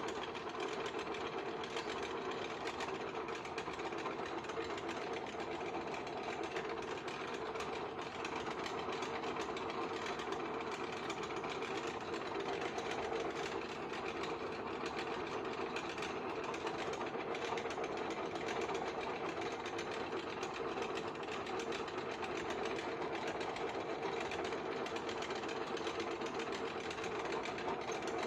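JET drill press running steadily while jeweling a rifle bolt, its spinning abrasive tool and lapping compound pressed onto the steel bolt: an even motor hum with a grinding hiss.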